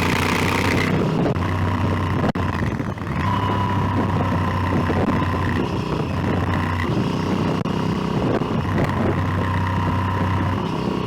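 Motorcycle engine running on the move, its note shifting a few times, with wind rush on the microphone that eases about a second in. A single sharp click a little over two seconds in.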